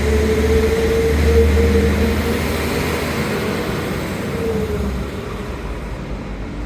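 Diesel train engine running under power, a steady droning note over a deep rumble; the rumble drops away about five seconds in and the sound slowly fades.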